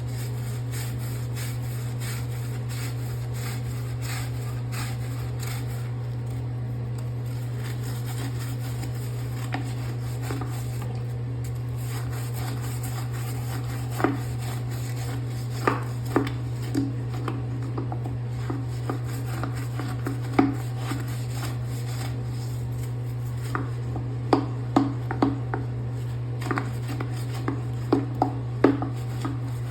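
Toilet being cleaned by hand: scattered sharp knocks and clicks of the cleaning tools against the toilet, sparse at first and coming more often from about halfway through, over a steady low hum.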